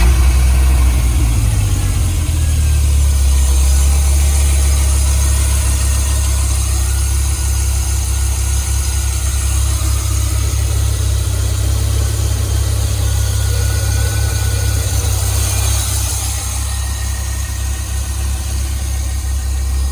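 Dodge Viper RT/10's 8.0-litre V10 catching at start-up and settling into a loud, steady idle with a deep exhaust rumble.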